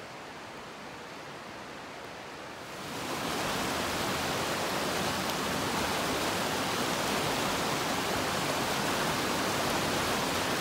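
Rushing mountain creek water: a steady, even rush that grows louder about three seconds in and then holds level.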